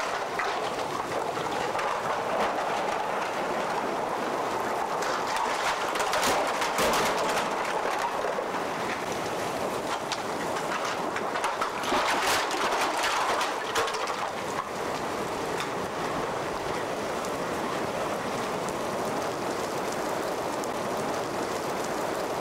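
Strong hurricane wind and rain blowing steadily, with brief louder bursts about six and twelve seconds in.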